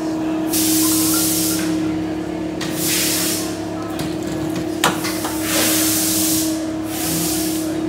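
About four bursts of hissing, each half a second to a second long, over a steady low hum, with one sharp click about halfway through.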